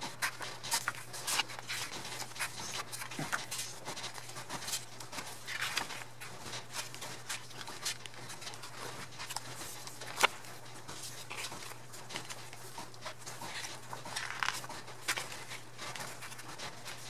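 Pages of a glossy album photobook being turned and handled: soft paper rustles with many small clicks and taps, and one sharp click about ten seconds in.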